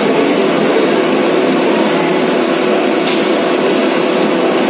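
Metal lathe running with its four-jaw chuck spinning, a single-point tool cutting a metal shaft and peeling off a continuous spiral chip: a steady machine drone with a dense hiss.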